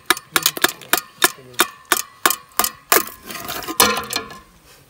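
Sharp metallic clinks, about three a second, from a steel tumbler and the ice frozen inside it as the ice is knocked loose over an aluminium pot. A frozen block of ice drops with a splash into the watermelon juice about four seconds in.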